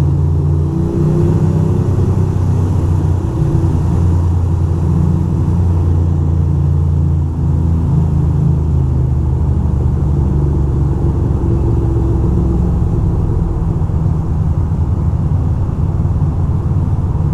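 2006 Ducati Monster 620's air-cooled L-twin engine running steadily at low revs inside a road tunnel, a deep, even sound without rises or falls.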